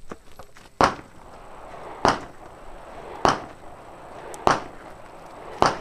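Five gunshots in a slow, even rhythm, one about every second and a quarter, each with a short echo.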